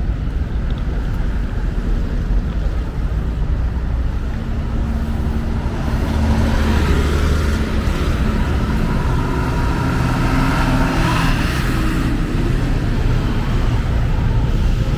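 Street traffic: motor vehicle engines running close by, with a louder vehicle passing from about six to twelve seconds in.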